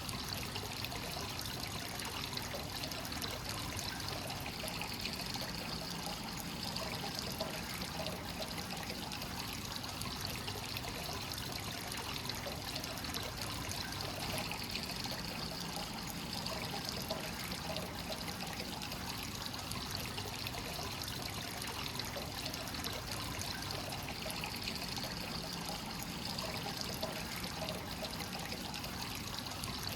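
Hot spring water pouring steadily into a bath from a free-flowing source, a continuous trickling splash with no pauses.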